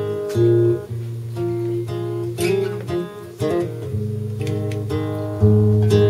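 Acoustic guitar strummed in an instrumental passage of a song, the chords changing every second or so with sharp strokes of the strum.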